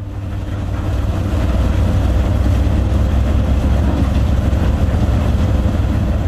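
Heavy machinery running with a steady, loud low rumble and a broad mechanical noise over it, swelling in over the first second.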